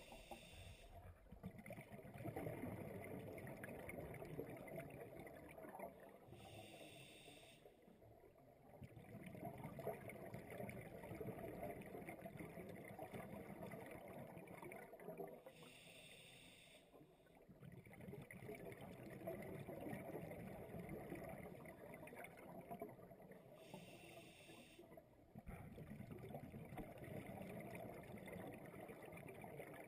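Scuba diver breathing through an open-circuit regulator, muffled: a short hiss of inhalation four times, about every eight seconds, each followed by a long bubbling exhalation.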